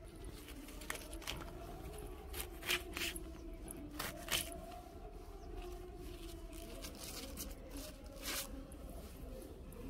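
Fresh mustard greens (saag) being cut by hand with a small blade: crisp snaps and snips of the stems at irregular intervals, over a faint steady hum.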